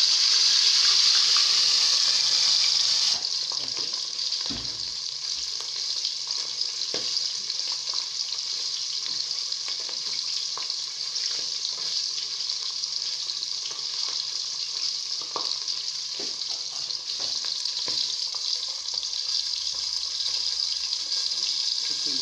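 Fish frying in hot oil: a steady sizzle that drops abruptly to a lower level about three seconds in, with occasional light clicks.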